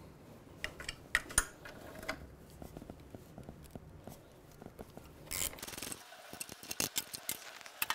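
Hand tools and brake parts being handled on a motorcycle's front fork while the brake parts are removed: scattered light clicks and taps, a short scrape a little past halfway, and a run of quicker clicks near the end.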